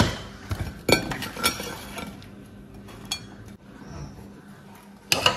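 A serving utensil clinking against a plate as fries are served: a few light clinks scattered through, then a louder clatter near the end.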